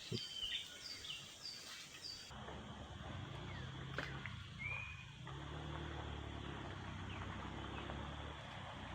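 Outdoor riverside ambience: short falling chirps about twice a second from a bird or insect, then a low steady hum with a single short whistled call and a click about four seconds in.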